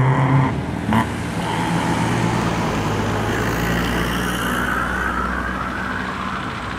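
Diesel engines of decorated Japanese trucks (dekotora) running as the convoy approaches. A steady held tone stops about half a second in, and a single knock comes about a second in.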